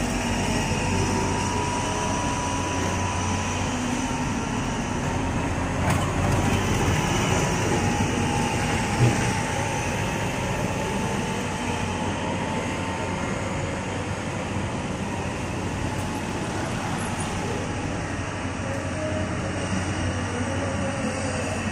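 Heavy rail-construction machinery running steadily, with a faint steady whine and a short knock about nine seconds in.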